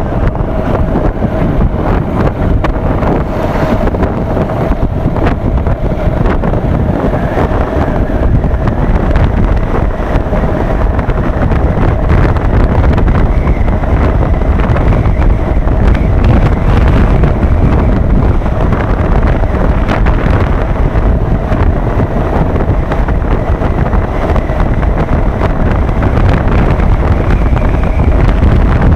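Wind rushing over the microphone of a Honda motorcycle at cruising speed, a loud continuous rumble, with the engine's steady hum and tyre noise underneath.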